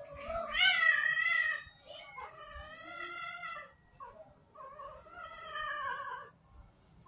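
Cat yowling as two street cats grapple. Three long drawn-out yowls, each over a second long; the first, about half a second in, is the loudest.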